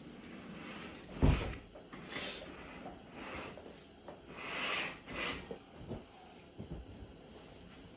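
A sharp knock about a second in, then several short rustling swishes and a few light taps: playing cards being slapped down and handled on a table during a card game.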